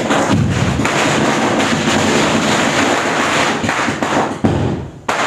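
A string of firecrackers going off in a loud, dense crackle that cuts off about four seconds in, followed by one more short burst near the end.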